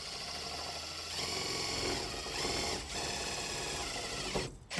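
Cordless power driver driving a screw into a cabinet panel: a steady motor whine for about four seconds, getting louder about a second in, briefly easing near the three-second mark and stopping just before the end.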